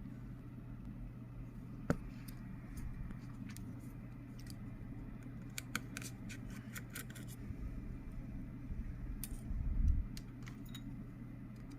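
Small metal repair tools clicking and tapping on the opened iPhone 11's internals: scattered light clicks over a steady low hum, with a sharper click about two seconds in, a run of clicks a little past the middle and a low bump near the end.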